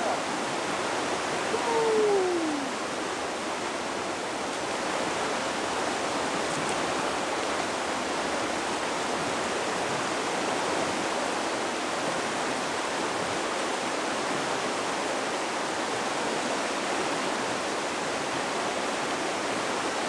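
Steady rush of a shallow river running fast over rocks in a riffle, with a short falling tone about two seconds in.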